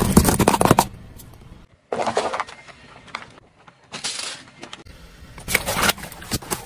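A car tyre crushing objects one after another: a rapid crackling crunch at the start as a jewelled metal tiara is flattened, a short crunching burst and then a brief hiss in the middle, and more crunching near the end as paper cups with water balloons are run over.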